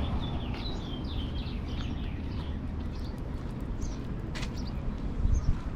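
Small birds chirping, a quick run of short hooked chirps at first and scattered chirps after, over a steady low rumble.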